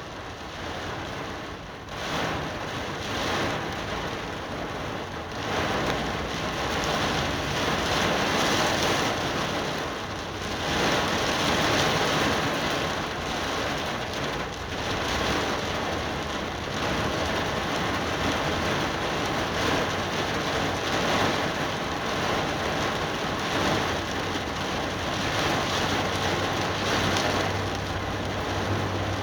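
Heavy rain pouring steadily, growing heavier and easing off again in waves. A low steady hum comes in near the end.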